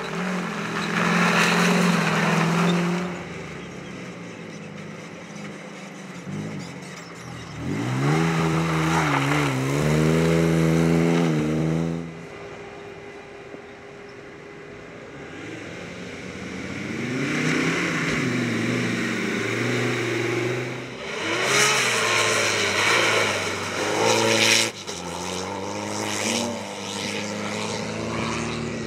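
Engines of off-road rally 4x4s revving hard as several pass one after another, pitch rising under acceleration and dropping as they ease off. The sound cuts off suddenly between cars.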